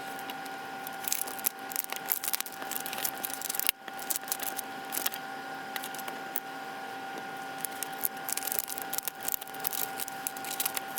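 Heat-transfer vinyl being weeded: many small scratches, clicks and peeling sounds as a hook tool pulls the unwanted vinyl off its carrier sheet, over a steady electrical whine.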